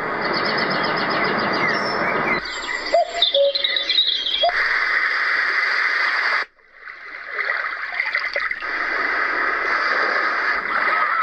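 Roffie N600 white noise machine's speaker playing recorded nature sounds: a steady hiss that switches about two seconds in to a track with bird chirps, then cuts out briefly about six seconds in as another hissing nature track starts.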